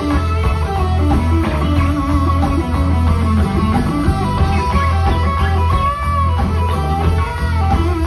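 Live electric blues guitar playing a lead line, with notes bent up and down in pitch, over a steady low bass.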